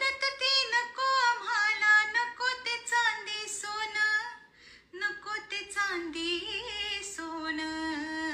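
A woman singing a melody with long held and sliding notes.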